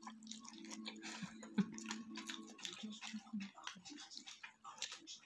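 Close-up wet mouth sounds of a person eating pork trotter with her fingers: many short smacks, sucks and chewing clicks as meat and skin are pulled off the bone. A steady low hum runs underneath.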